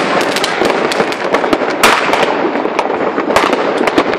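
Fireworks going off: a dense, unbroken barrage of bangs and crackling, the loudest bang about two seconds in.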